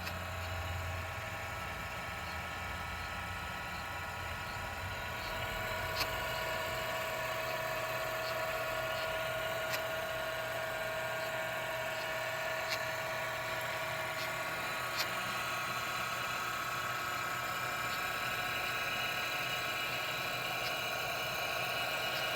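Teletype machine running idle with a steady mechanical hum and whine, and a few single sharp clicks.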